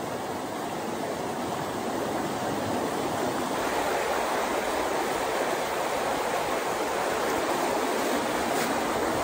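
Mountain stream rushing over rocks and small rapids: a steady wash of water that grows a little louder about three and a half seconds in.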